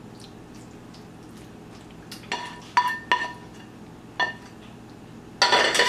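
A kitchen utensil clinking against a dish: four light, ringing clinks starting about two seconds in, then a louder scrape near the end.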